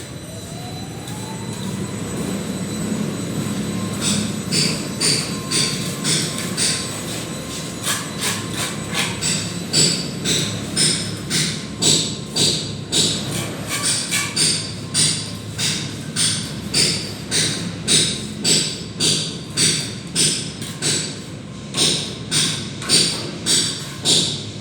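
Steel plastering trowel scraping and working cement plaster in quick regular strokes, about two a second, starting about four seconds in, over a steady low hum.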